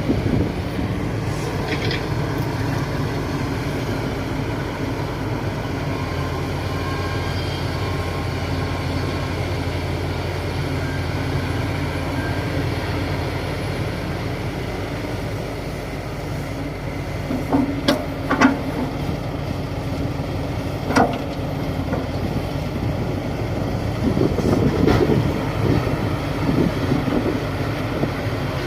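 Komatsu D58 bulldozer's diesel engine running steadily, with a few sharp knocks about two-thirds of the way through and again near the end.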